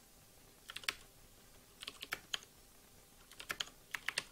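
Typing on a computer keyboard: clicks of keystrokes in three short bursts with pauses between, entering a command at a terminal.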